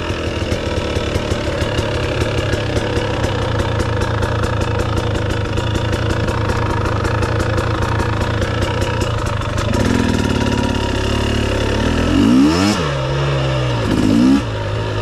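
Dirt bike engine idling steadily, then revved in two rising-and-falling blips near the end as the bike pulls away.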